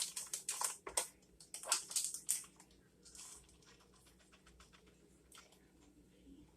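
Grated Parmesan cheese being shaken out of its container into a bowl of ground meat: a quick run of small scratchy clicks and rustles for the first couple of seconds, then a soft brief hiss, then it goes quiet.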